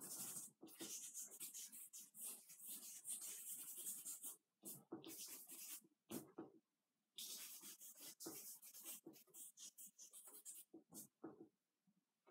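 Faint scratching of a charcoal stick on paper in quick, short strokes, with a couple of brief pauses.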